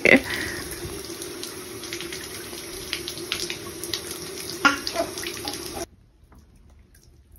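Water sprinkling in many thin streams from a squeezed bath rinse bottle with holes in its top, splashing into the bath water. It cuts off suddenly about six seconds in.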